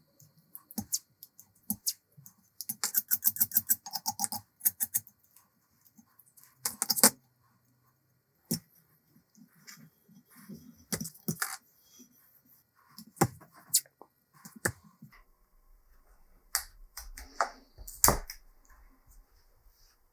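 Hand work on metal parts: scattered clicks, taps and scraping, with a fast run of clicks about three seconds in and a louder scrape about seven seconds in.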